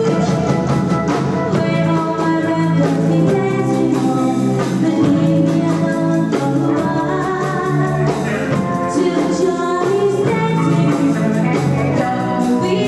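A live rock and roll band playing a song with a singer, guitar and drums keeping a steady beat.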